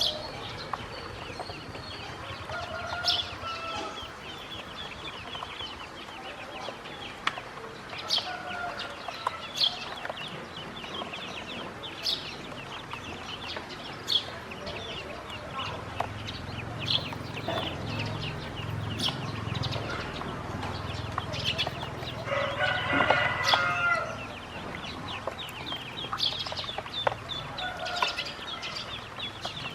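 Ducklings peeping in a busy, continuous chorus of short high chirps, with scattered sharp clicks. About three-quarters of the way through, a louder call of a second or two, with several pitches at once, rises over the peeping.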